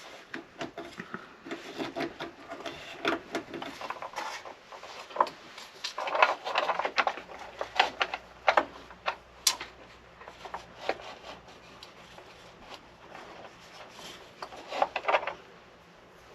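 Irregular clicks, light knocks and rubbing of a wooden pen blank and small tools being handled on a workbench, with no power tool running.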